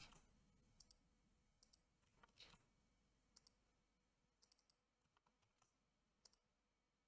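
Near silence broken by faint, scattered computer mouse clicks, some in quick pairs and one quick triple, as text is selected and copied.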